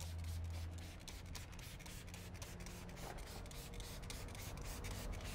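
Faint, scratchy hissing of a trigger spray bottle spraying degreaser onto a tire.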